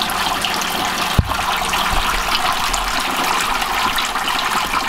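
Wort spraying from a copper sparge arm onto the grain bed in a cooler mash tun during recirculation (vorlauf): a steady splashing hiss. A single dull knock comes a little over a second in.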